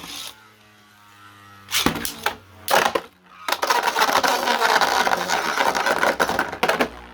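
3D-printed Beyblade tops launched into a plastic stadium: a launcher click and a short whir that dies away, a couple of sharp knocks, then the tops spinning, grinding and clashing in the stadium, with frequent clicks of impacts.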